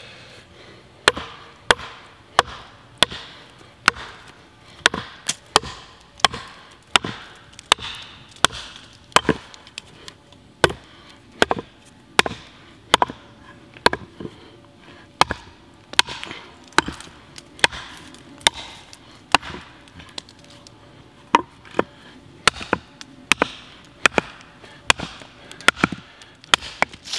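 Fiskars Norden N10 axe striking wood over and over to split a piece of wood: a long run of sharp chopping knocks, roughly one or two a second.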